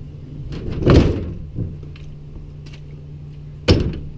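Two dull thuds, one about a second in and a sharper one near the end, over a steady low hum.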